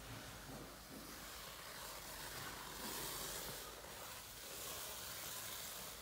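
WRAPIDO nano hand pallet stretch film pulling off the roll in its hand dispenser as it is wound around a pallet: a crackly plastic hiss that swells twice, about three and five seconds in.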